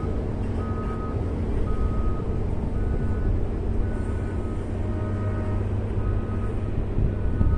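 Caterpillar 140M motor grader's diesel engine running steadily while its reverse alarm beeps about once a second as the machine backs up the dirt road.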